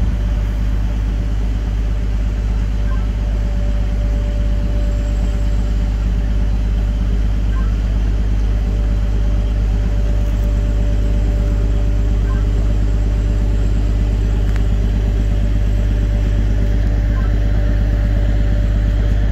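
Cog-railway locomotive's engine running steadily as it moves slowly along the rack track. It is a low, even drone with a faint steady tone above it, growing slightly louder as the locomotive closes on the snowplow to couple.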